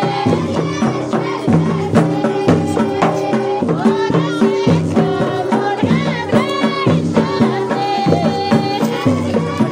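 Ahwash, Amazigh folk music from Morocco: group singing over a steady beat of drums.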